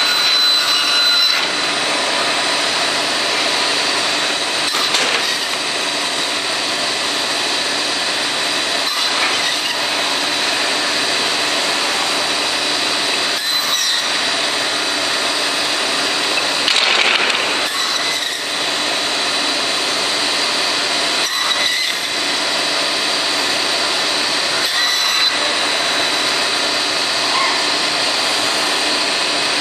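CNC band saw running and cutting stacked wooden blocks into spoon blanks, with a steady high whine over the noise of the blade in the wood. Scattered clicks and knocks come as the clamps move the stacks and cut pieces drop.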